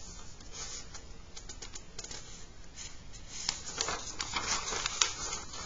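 Sheets of paper rustling and crinkling as they are handled and leafed through, in short dry crackles that get busier in the second half.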